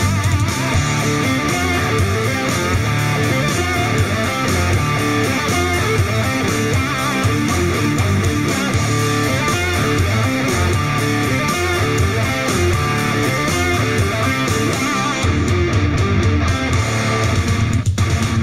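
Rock music with electric guitar, played back through a JBL Flip 3 portable Bluetooth speaker. About fifteen seconds in the bass gets heavier and the high end thins out.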